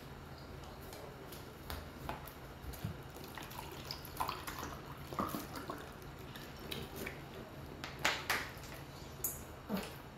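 Eating sounds at a hotpot meal: scattered light clicks of chopsticks against bowls and a few wet slurps and sips, over a steady low hum.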